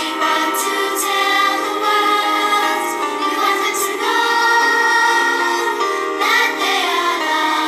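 A primary-school children's choir of P7 pupils singing a song together, holding long sung notes with crisp consonants between them.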